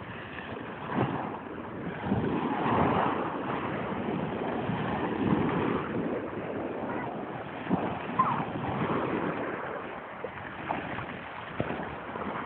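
Small waves breaking on a pebble beach and washing up over the shingle, swelling and falling every second or two, with some wind on the microphone.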